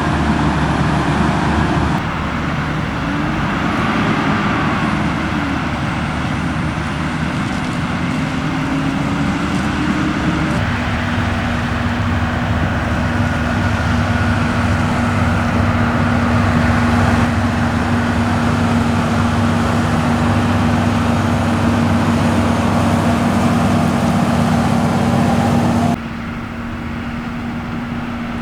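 Diesel engines of heavy farm machinery running, with the engine note rising and falling for a few seconds, then a steady hum. The sound changes abruptly three times, as between separate shots.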